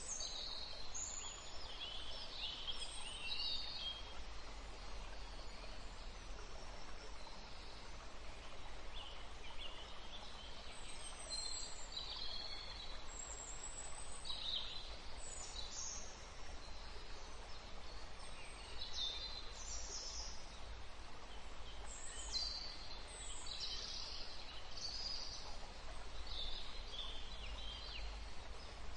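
Birds chirping and calling in short, scattered high-pitched notes, some falling in pitch, over a steady low rumble.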